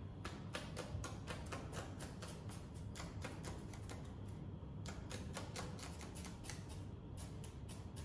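Cotton shirts being torn slowly by hand: faint, rapid, irregular crackling clicks as the threads give way.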